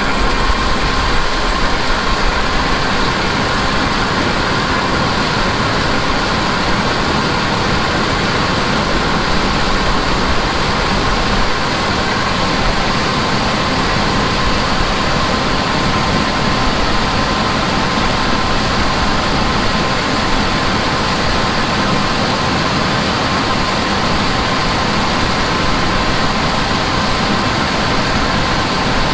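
Heavy farm machinery running steadily under load: a continuous engine and machine drone with a steady whine over it.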